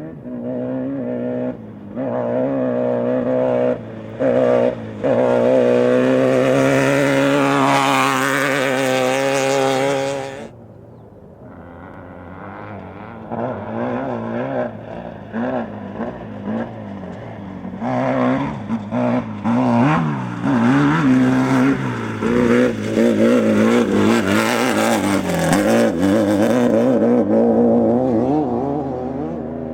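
Class 12 desert racing buggy's engine running hard at high revs. About a third of the way in it drops away suddenly, then it is revved up and down repeatedly as the throttle is worked on and off.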